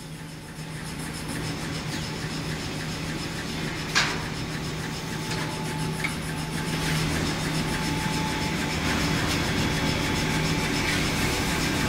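Tissue paper rewinding production line running: a steady machine hum with a rushing, rubbing noise, growing louder over the first few seconds, and one sharp clack about four seconds in.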